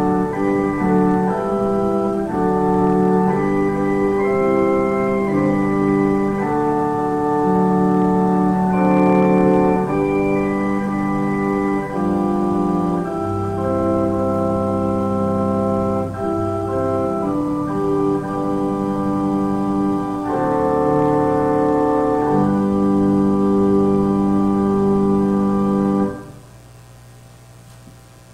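Church organ playing the offertory: slow held chords that change every second or so, with a deep bass note sustained for a few seconds in the middle. The music stops about 26 seconds in, leaving a low steady hum.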